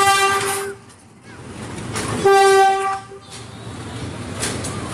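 Diesel locomotive horn sounding two short blasts of about a second each on one steady note, while the locomotive is being coupled to a coach.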